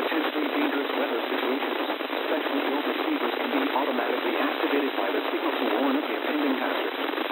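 Weak NOAA Weather Radio reception: steady static hiss with a faint forecast voice buried in it, too noisy to make out, in the narrow, tinny band of the radio audio.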